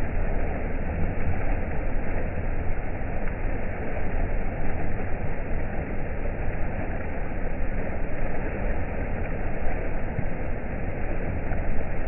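River water rushing steadily over a rock ledge into a pool: an even noise with a deep rumble in it.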